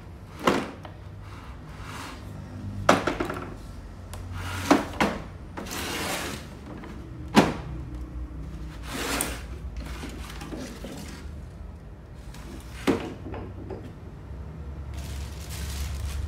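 Hard plastic Ryobi toolbox being handled: about five sharp plastic knocks and clunks as its parts are moved and set down, with sliding and scraping between them. A plastic bag rustles near the end.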